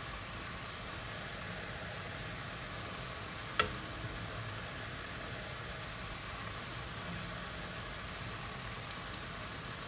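Steady, even sizzling of pork slices, konjac noodles and vegetables in a nonstick wok. A single sharp click about three and a half seconds in, as metal tongs knock against the pan.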